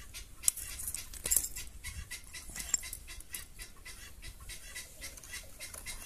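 Scraping, crackling and light clicks of a clay kesra griddle being shifted by hand on stones and gravelly dirt, with a few sharper ticks.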